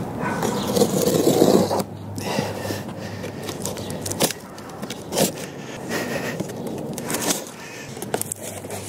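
Cardboard shipping box being handled and opened by hand: a loud stretch of scraping cardboard in the first couple of seconds, then quieter scraping with a few sharp knocks.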